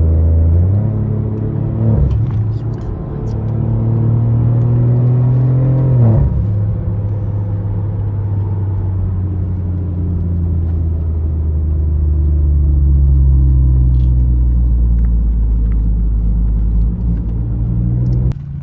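BMW F20's B38 turbocharged three-cylinder engine pulling hard through a catless downpipe exhaust. The engine note breaks sharply twice, about two and six seconds in, then holds a long steady drone.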